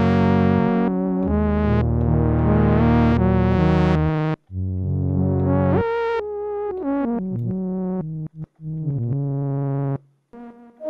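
Korg minilogue four-voice analog polyphonic synthesizer playing a pad patch: sustained chords, each swelling brighter and then closing again, changing every second or two. From about 6 s in come shorter notes with pitch glides, and the sound stops a little after 10 s.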